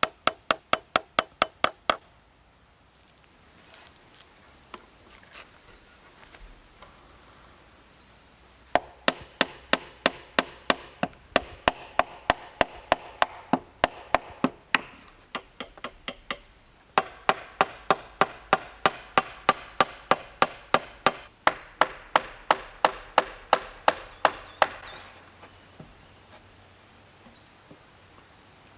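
A tool striking wood over and over at about three to four blows a second, each blow ringing briefly: chopping or hammering on wood. The blows stop about two seconds in, start again after a pause of several seconds, and run in long series until near the end.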